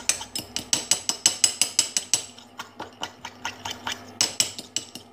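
A spoon beating egg yolk with sugar and brandy in a cup, making a rapid, even clicking of about six strikes a second against the cup's side. The beating is meant to dissolve the sugar into the yolk.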